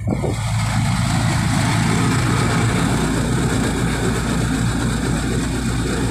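Engine running with a steady low hum and road noise, heard from on board a moving vehicle.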